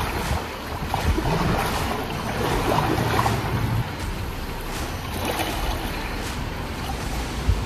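Wind buffeting the microphone over the rush of river water, with uneven low rumbles and a few faint clicks.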